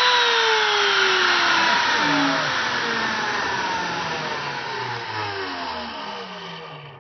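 Makita RT0700C trim router, used as the mill's spindle, winding down after being switched off: its high motor whine drops steadily in pitch from its 30,000 RPM running speed and fades out over about seven seconds.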